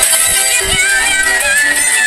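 Background music: a song with a high melody that slides between notes over plucked-string accompaniment.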